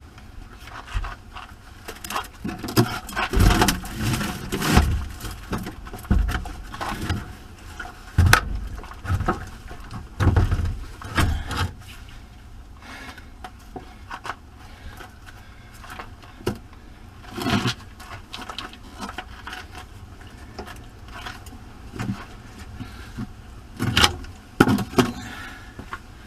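Irregular metal clinks, heavy knocks and scraping as 6-volt coach batteries are disconnected and dragged out of a motorhome's battery tray.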